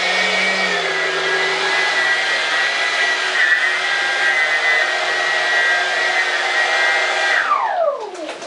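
Dr. Mad Thrust 68 mm ten-blade electric ducted fan on a 6-cell battery running at a steady high whine, then spooling down with a quickly falling pitch near the end as the throttle is cut.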